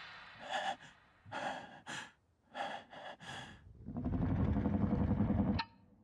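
A man breathing hard and gasping in short, frightened breaths. About four seconds in, a steadier, lower sound takes over and then cuts off suddenly.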